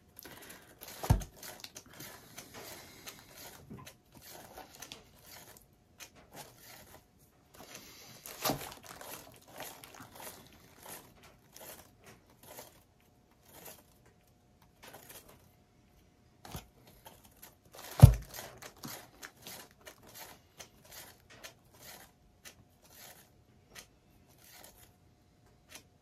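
Scattered light clicks and crinkling with three sharp knocks, the loudest about two-thirds through: handling noise while a paint-covered record is spun out by hand.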